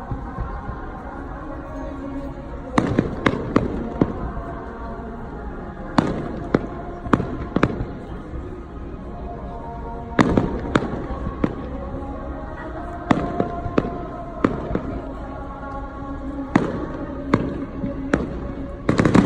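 Fireworks bursting overhead in about five quick volleys of sharp bangs, a few reports each, roughly every three seconds, with music playing underneath.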